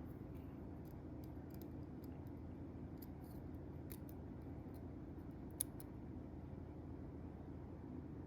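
Scattered faint, light clicks of small metal folding-knife parts being handled and set down, over a steady low hum. The sharpest click comes a little past halfway.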